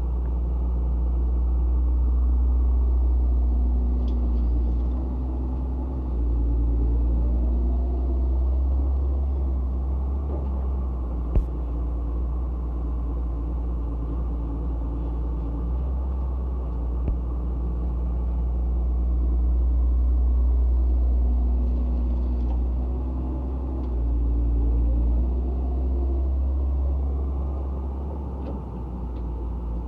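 Excavator's diesel engine working with a deep, steady rumble, its note rising and falling twice as the machine works through its loading cycle. A single sharp knock about eleven seconds in.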